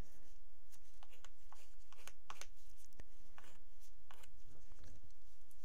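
Soft, irregular scrapes and light clicks, about two a second, of small plastic craft items and tools being handled on a tabletop while working with epoxy resin.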